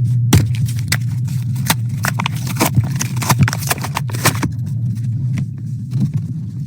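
Irregular sharp clicks and short scrapes, like tools and materials being handled, over a steady low hum.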